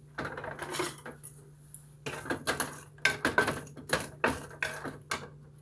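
A utensil clinking and scraping against a large pan of chopped vegetables as they are stirred: a run of sharp, irregular clinks, louder and quicker in the second half.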